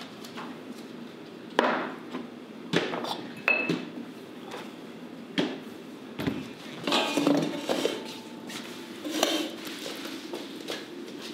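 A glass tumbler knocking down onto a hard bar counter, among several sharp knocks and clinks spread a second or so apart, the first and loudest about a second and a half in.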